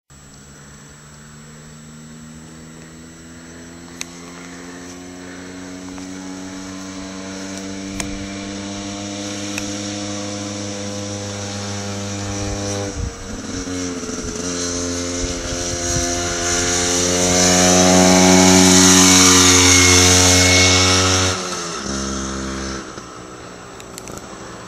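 A Vespa scooter's two-stroke engine, tuned with a Polini 102cc kit and Polini exhaust, accelerating hard uphill. Its pitch climbs steadily, drops with a gear change about halfway, then climbs again to its loudest. It falls away suddenly near the end.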